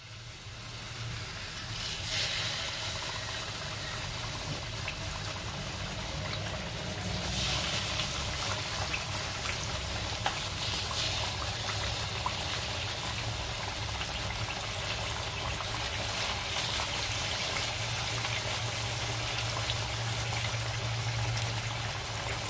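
Turmeric-coated Spanish mackerel steaks sizzling and crackling as they shallow-fry in hot oil. The sizzle gets louder about two seconds in and again about seven seconds in, as more steaks go into the pan.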